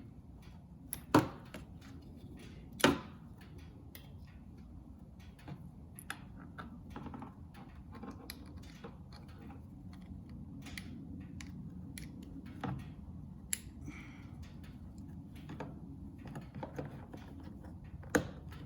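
Small plastic clicks and taps of a car door's puddle-light housing and its wiring connector being handled and unplugged, with three sharper clicks standing out: about a second in, near three seconds, and near the end.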